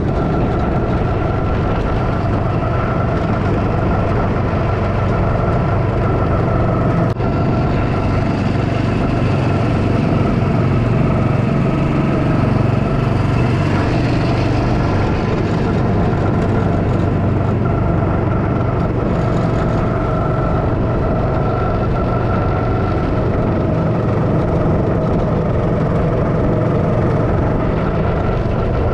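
Go-kart engine running at a steady speed with the kart under way, heard from the driver's seat; its pitch stays nearly level throughout.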